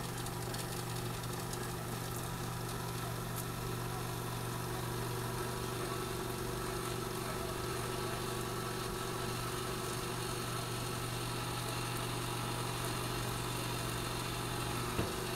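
Electric rotisserie motor humming steadily as it turns the spit.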